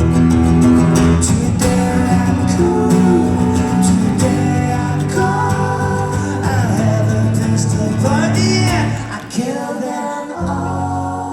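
Rock band playing live, a guitar-led passage between sung lines with some wordless singing gliding over it; the band drops back about nine seconds in.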